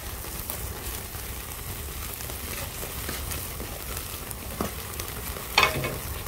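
Straw fire crackling and hissing under a wire grill rack of thick pork belly slices, with the fat sizzling in the flames. A louder pop stands out near the end.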